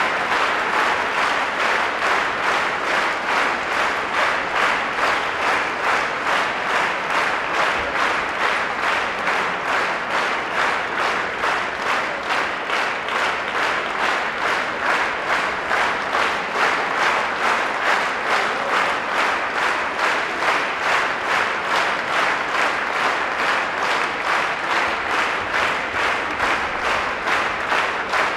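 Theatre audience clapping in unison: steady rhythmic applause at about two to three claps a second.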